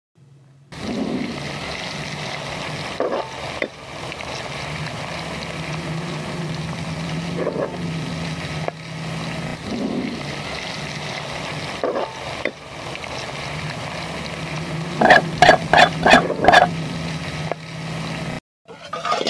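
Ghee and cumin seeds frying in a metal pan over a wood fire, a steady sizzling hiss with a few sharp ticks. About fifteen seconds in comes a quick run of loud metal clinks and knocks, a ladle and lid against the pot.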